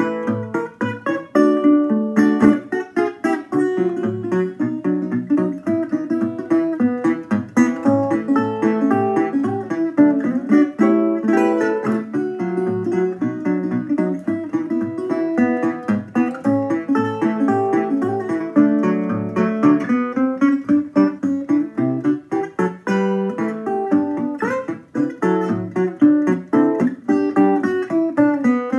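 Metal-body resonator guitar fingerpicked solo: steady low bass notes under a plucked melody, with a few notes sliding in pitch near the end.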